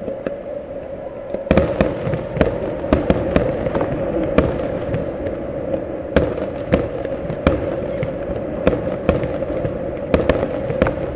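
Aerial fireworks shells bursting at a distance: irregular sharp bangs, several a second, beginning about a second and a half in, over a steady hum.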